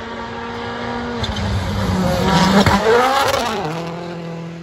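Rally car driven flat out along a gravel stage and passing close by. Its engine note builds to a loud peak about two and a half seconds in, the pitch shifting as it goes past, then settles back and fades.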